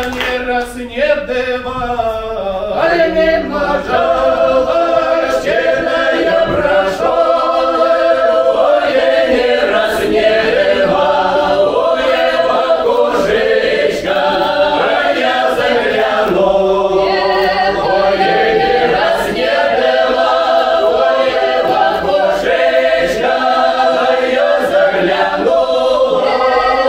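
Mixed ensemble of men's and women's voices singing a Don Cossack folk song unaccompanied, in several parts at once. The singing starts about a second in and holds steady throughout.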